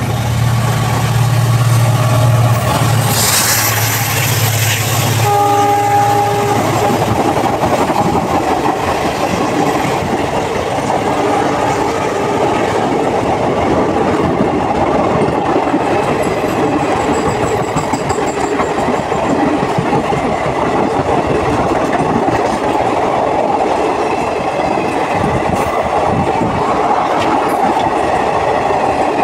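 WDP4D diesel-electric locomotive, with its 16-cylinder EMD two-stroke engine, passing at high speed. The engine drone is loud for the first few seconds, with a short horn blast about five seconds in. Then the express coaches rush past, their wheels clattering over the rail joints.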